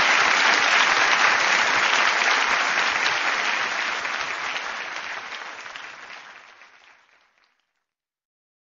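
Audience applauding, a dense patter of many hands that fades away from about three seconds in and dies out near the end.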